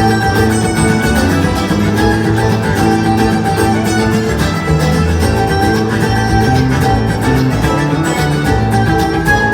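Bluegrass band playing an instrumental passage: acoustic guitar and mandolin picking, with fiddle, over a steady beat.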